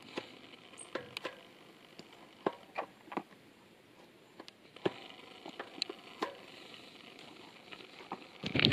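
Scattered rubbing and snapping of a stiff Schwalbe Magic Mary downhill tyre as its bead is forced onto the wheel rim by hand. A louder burst of rustling noise comes near the end.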